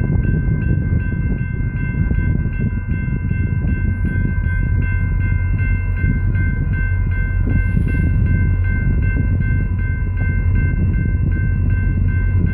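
Level-crossing warning bell ringing in rapid, evenly spaced rings as the crossing gates rise, over a steady low rumble from the departing train.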